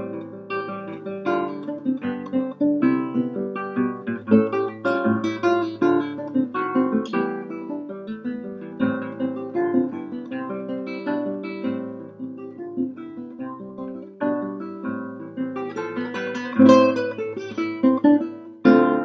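Solo classical guitar with nylon strings, fingerpicked: a melody of plucked notes over bass notes, with louder full chords in the last few seconds.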